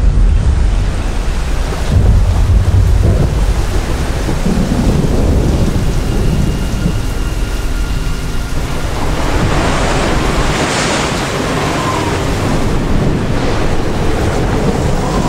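Thunderstorm: heavy thunder rumbling at the start and again about two seconds in, over steady heavy rain whose hiss swells in the second half.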